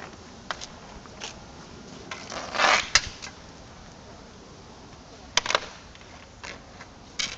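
Hockey sticks clacking and scraping on asphalt and against each other as two inline skaters play road hockey: scattered sharp knocks, a longer scrape a little after two and a half seconds ending in a sharp crack, and a quick cluster of knocks about five and a half seconds in.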